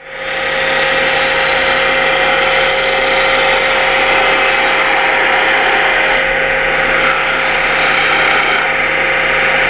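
Wood spindle turning on a Oneway lathe and being cut with a detail gouge: a steady cutting hiss over the lathe's motor hum, the hiss losing some of its brightness about six seconds in and again near the end.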